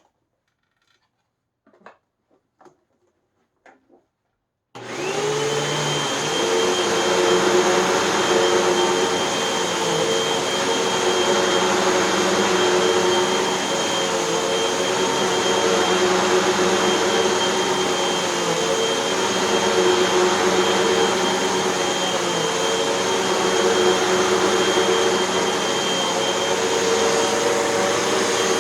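Hoover WindTunnel 2 upright vacuum cleaner switched on about five seconds in, after a few faint clicks. Its motor whine climbs quickly to a steady pitch, and it then runs steadily with its stiff brush roll on carpet, swelling slightly now and then.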